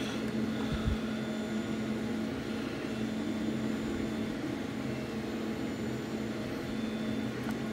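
A steady low hum, with a soft bump about a second in.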